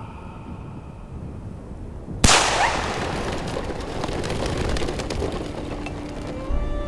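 A single gunshot from the hunter's gun about two seconds in, a sharp crack followed by a long echoing tail. This is the shot fired at the wolf driven into the ambush.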